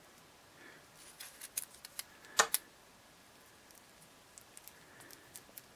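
Quiet handling sounds as a small glue tube is worked over a block of styrofoam: a scatter of light clicks and taps, with one sharper click about two and a half seconds in.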